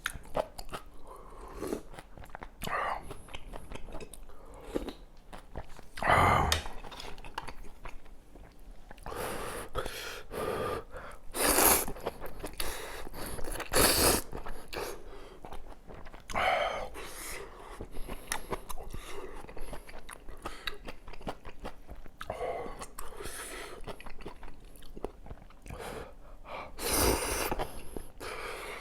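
A person eating kimchi kalguksu noodles and potato pancake close to the microphone: steady chewing and biting, broken by about seven louder noisy bursts.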